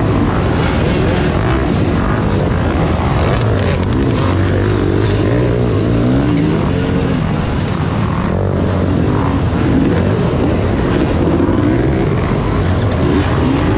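Several dirt bike engines revving in a racing pack. Their pitch rises and falls over and over with the throttle, and the nearest engine is the loudest.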